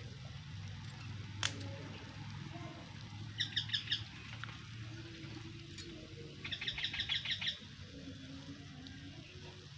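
A bird chirping in two quick runs of rapid, evenly repeated high notes, a short run of about four a few seconds in and a longer run of about nine later, with a single sharp click before the first run.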